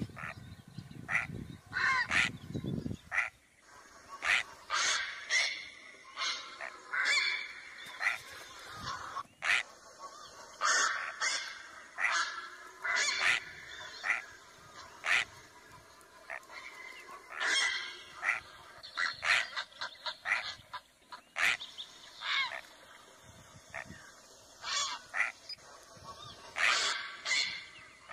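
Grey heron calling over and over: short calls come in irregular bunches with pauses between them, some in quick succession. A low rumble lies under the first three seconds.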